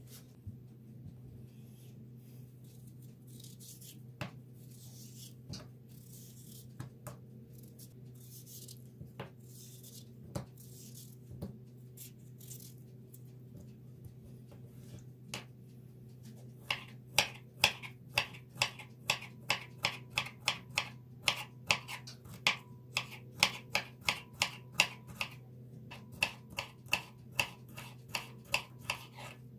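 Kitchen knife cutting cucumber against a tabletop: scattered single knife strokes at first, then, from a little past halfway, a steady run of sharp chops about two to three a second, with a short pause near the end. A steady low hum runs underneath.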